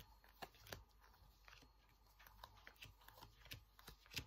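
Near silence with a few faint, sharp taps and clicks spaced irregularly, from tarot cards being handled and laid on a table.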